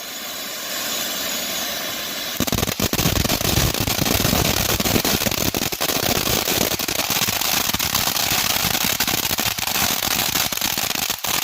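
Skyking 'Ghosted' fountain firework spraying with a steady hiss, then about two and a half seconds in breaking into dense, rapid crackling that keeps going.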